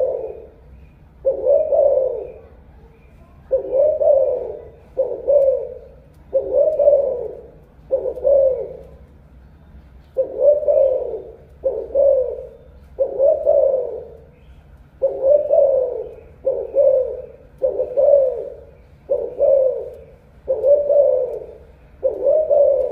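A caged spotted dove calling: a long series of low coos, about one a second, each rising then falling in pitch, with a few slightly longer pauses between groups.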